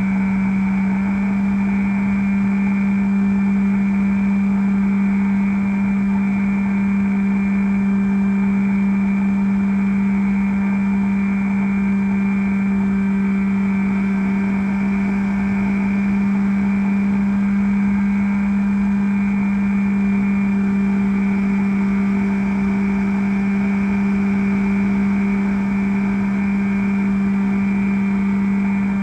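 Electric motor and propeller of a Bixler RC plane running at a steady throttle in flight, picked up by the onboard camera: a constant droning whine that holds one pitch.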